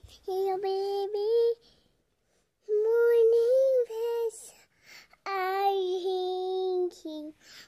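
A young child singing a tune in short phrases of long, held notes, with brief pauses between the phrases.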